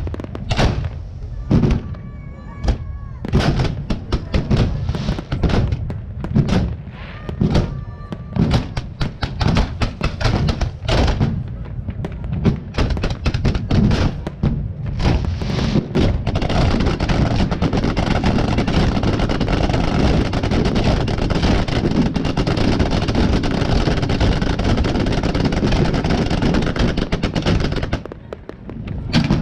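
Display fireworks going off: a quick series of separate shell bursts and bangs with a few short whistles, then from about halfway a dense, continuous barrage of bangs and crackling that stops a second or so before the end.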